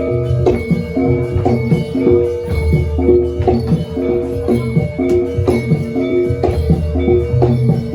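Live Javanese gamelan music for a jaranan dance: tuned gongs and metallophones struck in a fast, evenly repeating pattern of ringing notes over regular low drum and gong hits.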